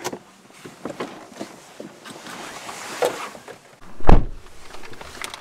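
Getting out of a car: a latch click, small knocks and rustling, then a car door shut with a heavy, deep thump about four seconds in.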